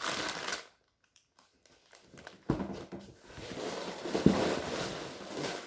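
Plastic LEGO parts bags crinkling and rustling as they are handled, stopping briefly about a second in, then picking up again with a couple of sharp knocks as bags are set down.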